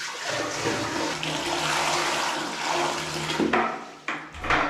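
Newly installed toilet flushing on its first test: a rush of water that runs for about three and a half seconds, then dies down near the end.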